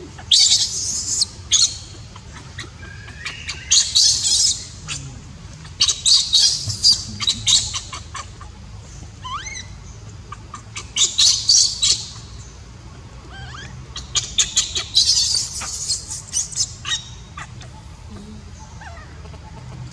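Baby macaque crying: clusters of shrill, rapid screeching cries every few seconds, with a few rising squeaks between them: the distress cries of an infant its mother is not caring for.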